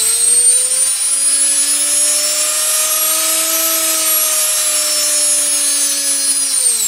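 Universal-type washing machine motor spinning very hard with no load: a high whine that climbs in the first second as it spins up, holds steady, then falls away near the end as the motor winds down.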